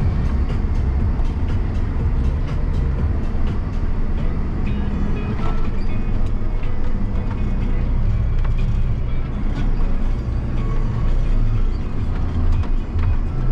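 John Deere 7250R tractor engine running steadily under way, heard from inside the cab, with frequent light clicks and rattles.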